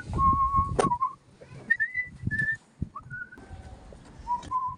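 A string of clear whistled notes, each held briefly at a different pitch, over the knocking and clatter of steel pipe and rod being handled on a workbench, with one sharp click just under a second in.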